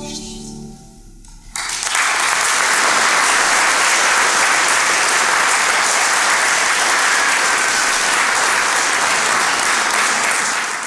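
The song's last chord fades away, and about a second and a half in the audience breaks into steady applause that keeps on.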